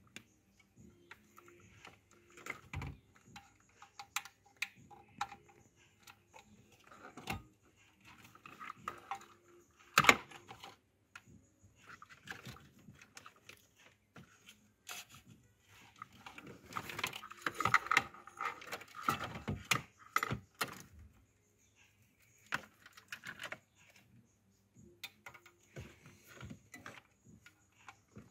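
Small clicks and rattles of plastic wiring-harness connectors and cables being handled and plugged in behind a car's radio, with one sharper click about ten seconds in and a busier run of clicking about two-thirds of the way through.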